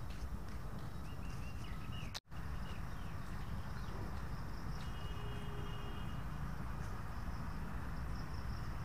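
Outdoor park ambience: birds chirping and a steady high insect buzz over a steady low rumble, with a brief break in the sound about two seconds in.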